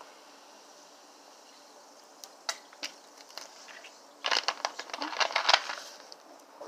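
Crinkly plastic crackling as it is handled close to the microphone: a few sharp clicks about two seconds in, then a dense stretch of crinkling for about two seconds that dies away near the end.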